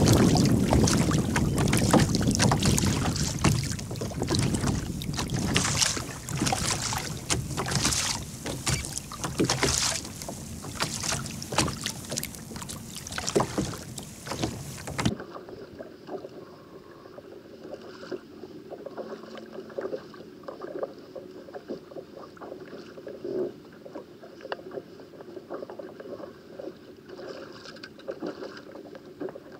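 Wind buffeting the microphone and water lapping and slapping against a kayak hull at sea. About fifteen seconds in, the sound drops suddenly to a quieter, duller wash of water.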